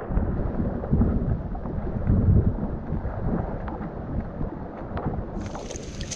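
Muffled rumbling water noise with faint scattered clicks, heard from a submerged camera while snorkeling. About five seconds in, the sound suddenly turns bright and open as the camera breaks the surface into wind and surf.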